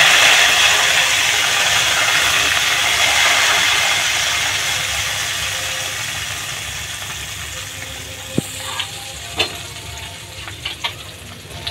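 Hot oil tempering (tarka) with garlic, whole dried red chillies and cumin sizzling as it hits cold yogurt, loud at first and slowly dying away. A few sharp clicks near the end.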